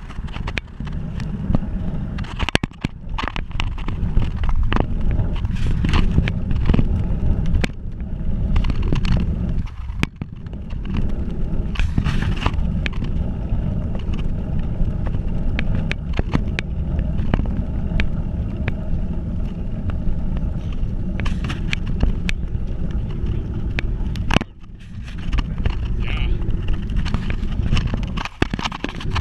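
Riding noise from a camera mounted low on a moving bicycle: a steady low rumble of wind on the microphone and tyres on asphalt, with frequent clicks and knocks from jolts over the road. The rumble briefly drops away twice.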